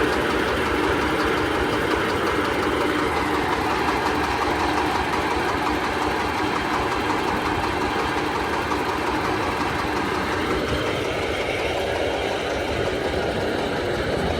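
Corn sheller machine driven by a 30 hp Dong Feng diesel engine, running steadily with a constant, dense mechanical noise.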